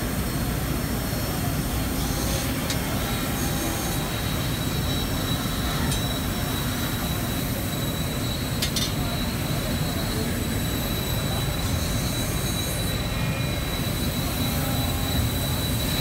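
Steady din of a busy exhibition hall full of running machinery, with a constant thin high whine and a few faint clicks.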